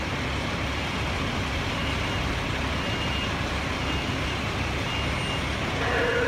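Fire trucks' engines running steadily, a dense low rumble, with faint short high beeps about once a second.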